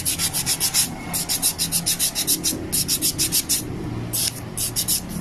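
Nail file rasping over a gel-polished fingernail in quick back-and-forth strokes, about six a second, in short runs with brief pauses. The file is roughening the glossy gel surface so that acetone can soak in and lift the gel.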